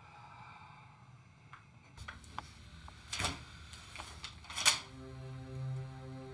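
Two sharp clicks about a second and a half apart, then a low steady note with overtones comes in near the end.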